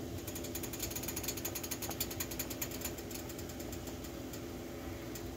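Food sizzling in a hot stainless steel pan as jarred fettuccine sauce is poured in: a fast crackling that is dense for the first half and thins out, with a few more crackles near the end.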